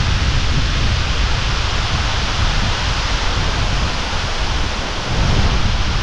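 Ribbon Fall crashing down close by: a loud, steady rush of falling water and spray, with gusts buffeting the microphone in a rough low rumble.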